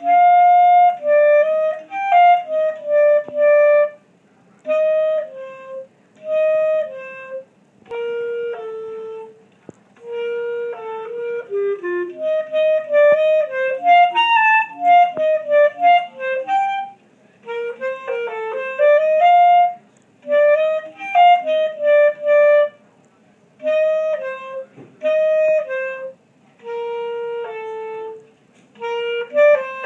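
Clarinet playing an unaccompanied solo piece: short phrases of separate, mostly mid-range notes, each phrase broken by a brief rest.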